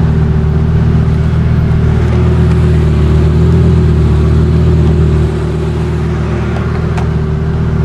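Lamborghini Gallardo Spyder's V10 engine idling steadily, dropping a little in level about five seconds in.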